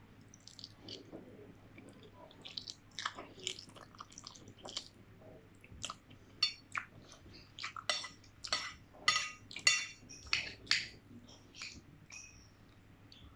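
Cutlery clinking and scraping against a bowl of noodle soup while eating, with a quick run of loud clinks in the second half.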